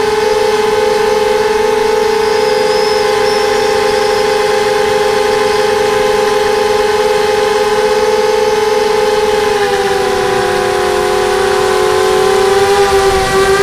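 QAV250 racing quadcopter's brushless motors and propellers whining steadily in flight, heard from the onboard camera. The pitch dips slightly about nine and a half seconds in as the throttle eases.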